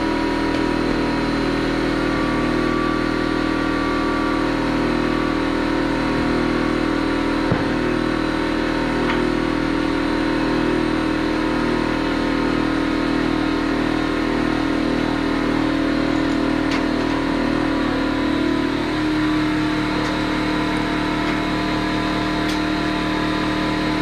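Air compressor running steadily to inflate a freshly plugged tire, its motor note shifting slightly about nineteen seconds in.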